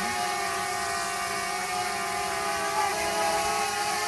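DJI Mavic Mini quadcopter drone hovering close overhead, its propellers giving a steady, multi-toned buzzing whine whose pitch wavers slightly about three seconds in.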